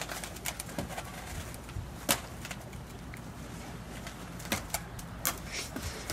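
Scattered knocks and creaks from a wooden picket fence being climbed over, as shoes and hands bump the boards. The sharpest knock comes about two seconds in, with a few more later.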